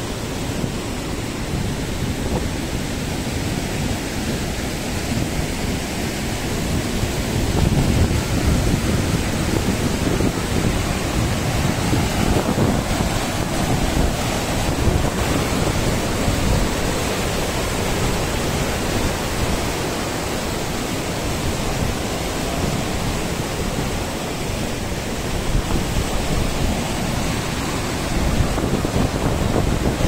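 Steady rushing roar of the Krimmler Ache, the mountain river of the Krimml Waterfalls, with wind rumbling on the microphone.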